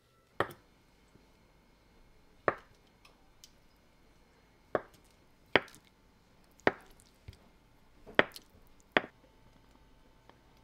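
Knife chopping on a cutting board: about seven sharp, separate knocks at uneven intervals, roughly one a second.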